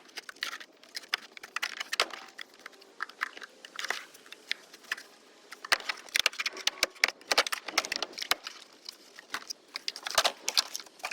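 Irregular sharp clicks and snaps as a piece of the truck's door trim is worked loose with a pick tool and pulled off.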